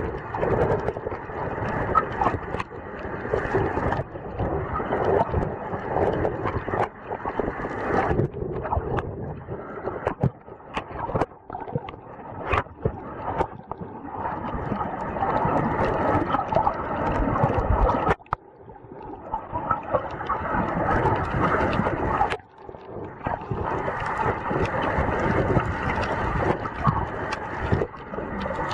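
Muffled water sloshing and gurgling picked up by a waterproof camera held in and under the sea, with scattered clicks and knocks and two brief drop-outs.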